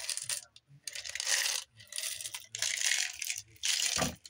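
Small buttons rattling and clinking against each other and the jar as it is shaken, tipping a handful out into a palm, in about five shaken bursts.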